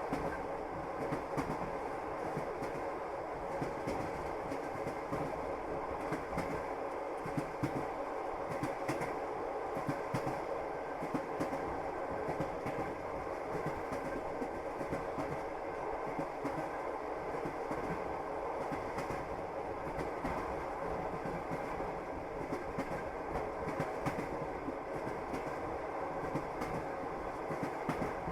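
Passenger train running at speed: the wheels clack steadily over the rail joints against a continuous rumble of the carriage.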